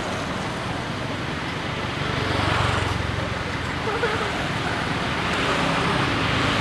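Steady outdoor background noise with the low hum of road-vehicle engines, swelling about two seconds in and again near the end.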